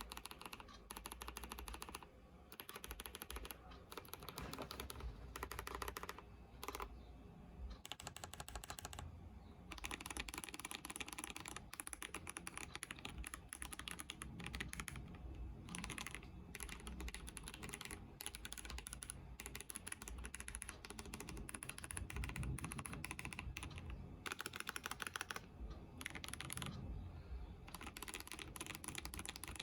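Fast typing on a mechanical keyboard fitted with new keycaps, as a keycap sound test: a dense run of key clicks broken by a few brief pauses.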